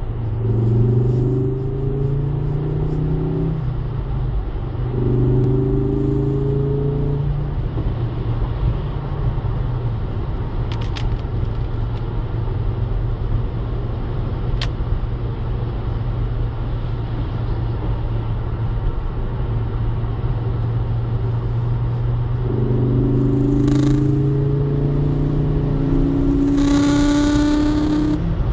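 Ford Focus ST225's turbocharged five-cylinder engine heard from inside the cabin, pulling up through the revs twice in the first seven seconds, cruising steadily, then climbing again over the last six seconds. Tyre noise on the wet road runs underneath.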